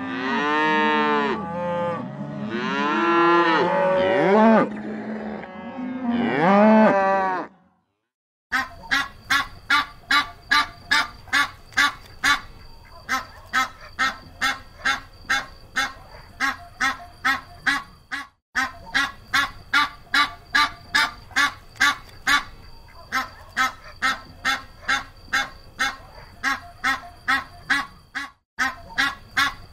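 Cattle mooing, several long calls that rise and fall and overlap, for about the first eight seconds. After a short silence, a flock of Canada geese honks repeatedly at about two honks a second, with brief breaks twice.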